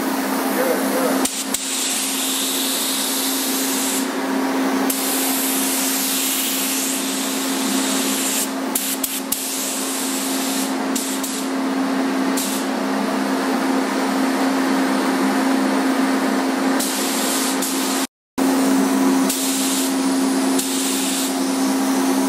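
A paint booth's air system runs with a steady hum. Over it, a paint spray gun hisses on and off in short passes, spraying the car's body moldings and bumper. The sound cuts out completely for a moment near the end.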